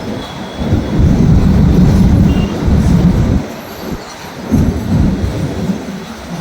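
Train passing at speed on the rails: a loud, uneven rumble that swells and fades, dipping briefly about three and a half seconds in.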